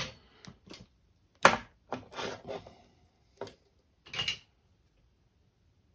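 A series of short knocks and clicks from tools and small parts being picked up and set down on a workbench during soldering work. The loudest knock comes about a second and a half in, and the sounds stop after about four and a half seconds.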